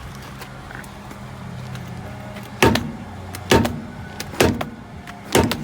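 Four hammer blows on a car wheel that is rust-seized on its hub, evenly spaced about a second apart starting halfway through, each with a brief metallic ring, over a steady low hum.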